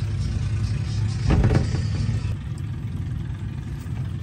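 An engine running steadily with a low hum, with a brief voice about a second and a half in.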